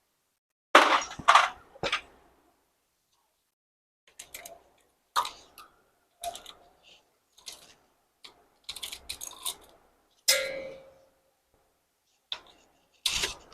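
Irregular metallic clicks, clinks and knocks of tools and engine parts being handled during motorcycle engine work, one clank a little after ten seconds ringing briefly.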